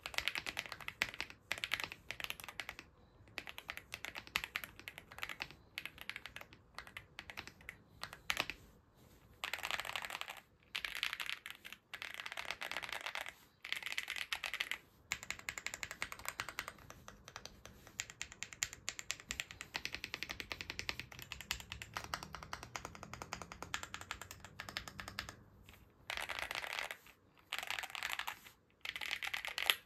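Typing on a fully foamed TN80 mechanical keyboard with factory-lubed Leobog Greywood V3 linear switches: rapid key clacks in bursts of a second or a few seconds, broken by short pauses.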